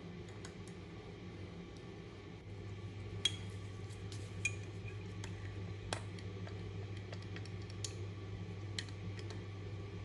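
Small, irregular metallic clicks from a key safe's combination number wheels as they are rolled and probed with a thin metal tool to decode a forgotten code. The sharpest clicks fall about three, four and a half, six and eight seconds in, over a low steady hum.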